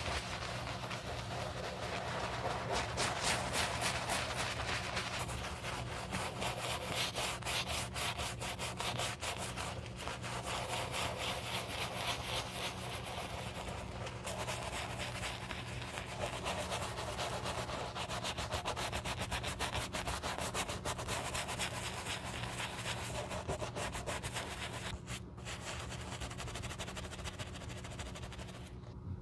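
Shoe-cleaning brush scrubbing soap lather over a leather loafer: rapid, continuous back-and-forth bristle strokes, a dense scratchy rubbing.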